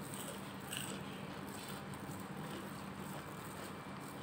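Faint background: a steady low hum, with a few soft clicks and rustles from plastic-gloved hands handling food, one about a second in.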